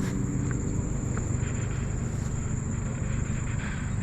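Insects droning in one steady high note over a steady low rumble.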